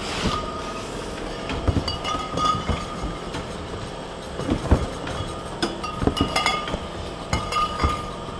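Glass wine bottles clinking and knocking against each other at irregular moments as they are handled and packed into cardboard cases, over a steady background hum.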